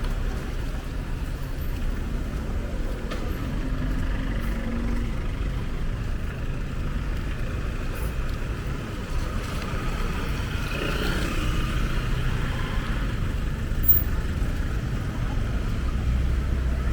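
Steady low rumble of road traffic, with vehicles running past, and a single brief sharp tick about fourteen seconds in.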